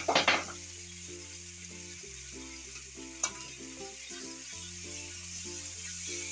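Raw chicken pieces sizzling in hot oil in an aluminium karahi, stirred with a wooden spatula. The spatula scrapes and knocks against the pan in a quick cluster just at the start and once more about three seconds in.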